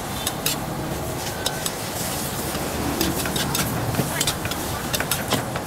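Food stir-frying in a hot pan: a steady sizzle with frequent sharp clinks and scrapes of a metal utensil against the pan.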